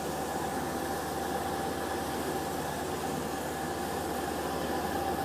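Steady mechanical hum and hiss of commercial kitchen ventilation running, with a constant tone and no breaks.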